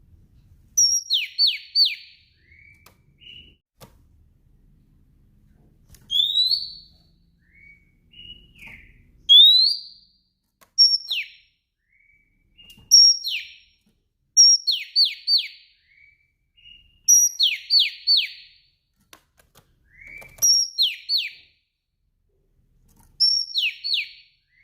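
Female oriental magpie-robin (kacer) calling in short repeated phrases, one every two to three seconds. Each phrase is a high note followed by three or four quick falling notes, with occasional rising slurred whistles and soft chirps between them. It is the female call that prompts male magpie-robins to sing.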